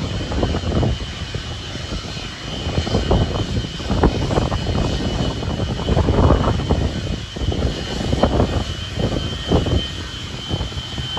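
Jet airliner engines running, with a steady high whine, under heavy wind buffeting on the microphone that comes and goes in gusts.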